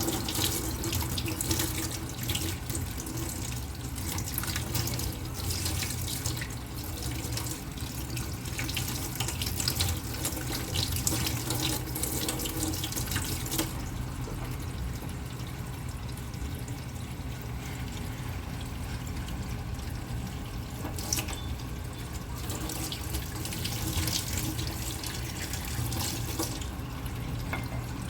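Kitchen tap running into a sink, the water splashing as strawberries are rinsed under it; the splashing is busier in the first half and softer in the second.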